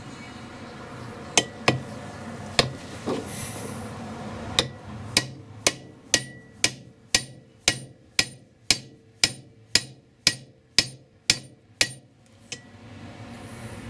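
Hammer tapping a new, longer disc-wheel stud into an MGA rear hub. A few scattered blows come first, then a steady run of about two taps a second, each with a short metallic ring, stopping about 12 seconds in. The stud is going in only a little at a time.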